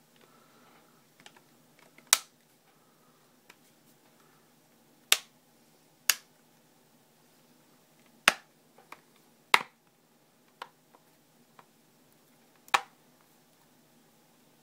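Plastic back cover of a Nexus 7 tablet being pressed back on, its clips snapping into place: six sharp clicks a second or more apart, with fainter ticks between them.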